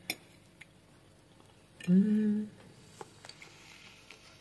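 A light clink of cutlery on a plate, then about two seconds in a short, loud hummed 'mmm' of a woman savouring a bite of food.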